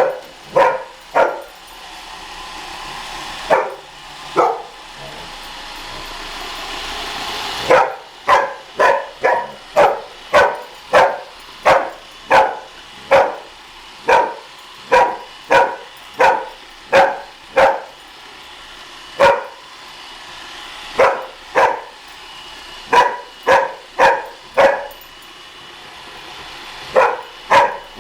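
Young dog barking repeatedly at a running Roomba robot vacuum: short, sharp barks about one a second, with a few pauses. Between barks the vacuum's steady whirring hiss swells for several seconds and then cuts off abruptly.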